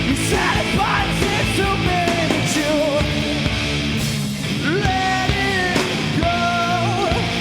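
Live rock band playing, with a singer's voice carried over distorted guitars, bass and drums.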